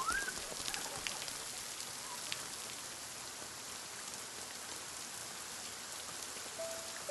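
Steady rain falling, an even hiss with scattered drop ticks. A short rising chirp sounds right at the start, and a held musical note comes in near the end.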